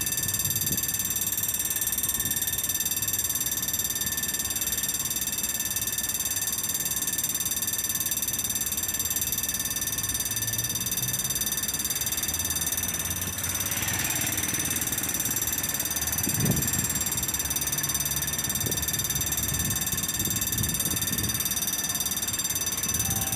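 Level-crossing warning bell ringing steadily, the signal that the barriers are down for an approaching train.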